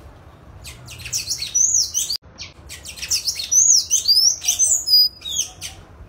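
Sayaca tanager singing: two loud runs of high, squeaky notes with quick rising and falling slurs, the first ending about two seconds in and the second running on until shortly before the end.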